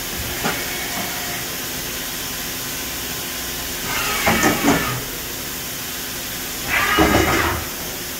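Feeler VMP-1100 vertical machining center moving its axes under power: two bursts of motor and slide noise, each about a second long, about four and seven seconds in, the second one louder. They ride over the machine's steady hum.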